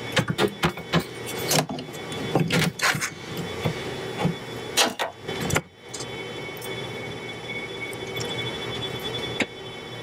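Rustling and irregular clicks of a network cable's wires and a plastic Cat5e patch panel being handled as the wires are laid into the panel's slots, stopping about five and a half seconds in. A steady hum with a faint high whine runs underneath.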